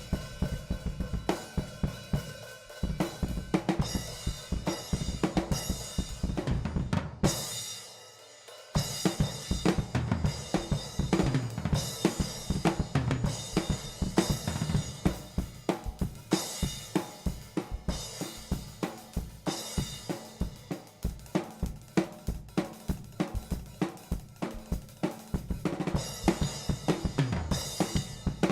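A drum kit played solo: fast, busy patterns on bass drum, snare and hi-hat with cymbal crashes every few seconds. The playing breaks off briefly about seven seconds in, then picks up again.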